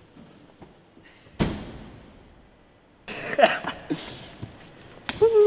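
A car's hatchback tailgate being shut: one heavy thud about a second and a half in, with a short ringing tail. Later comes a louder burst of rustling and knocking about three seconds in, and a short pitched sound near the end.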